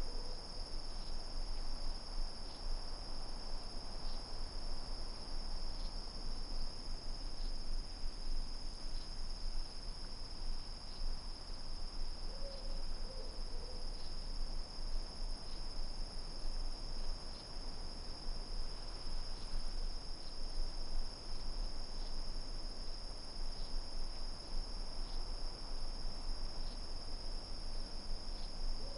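Steady, high-pitched chorus of night insects trilling without a break. A faint, low two-note call sounds a little past the middle and again at the very end.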